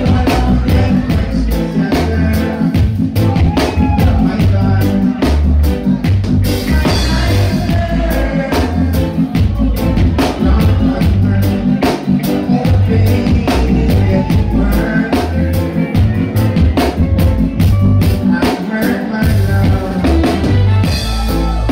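Music with a steady drum beat and a heavy bass line.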